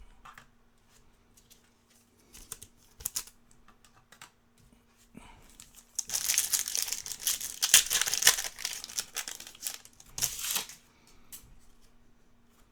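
Foil trading-card pack wrapper crinkling and tearing as a pack is opened, with scattered clicks of cards being handled. The crinkling is densest for a few seconds in the middle, with a short burst after it, over a faint steady hum.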